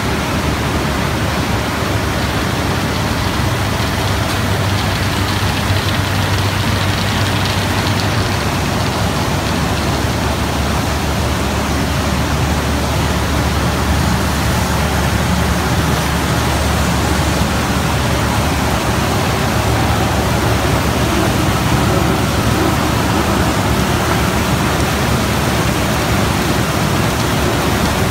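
Coffee wet mill at work: water rushing through the washing channels and a coffee pulping machine running, a loud steady noise with a low hum underneath.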